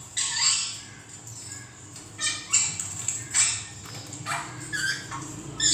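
An animal's short, high-pitched calls, repeated about every half second to a second.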